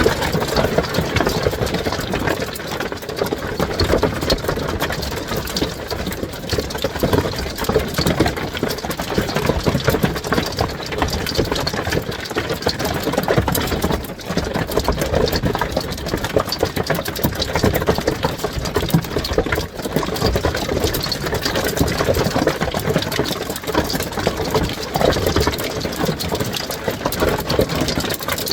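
Heavy hail hitting a house roof, heard from the bedroom below: a steady, dense racket of countless rapid stone impacts with no let-up. The owner judges from the sound that the stones are half an inch to an inch across.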